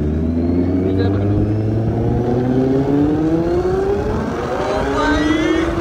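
Kawasaki Z800's inline-four engine accelerating hard, its pitch rising steadily for several seconds and then dropping at a gear change right at the end, with wind noise.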